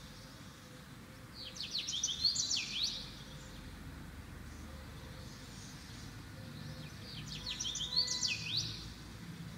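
A songbird singing in the background: two quick bursts of rapid chirps, one about a second and a half in and another near the end.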